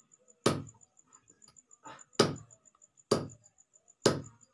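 A heavy knife chopping raw chicken on a wooden log chopping block: four hard chops spaced about a second apart.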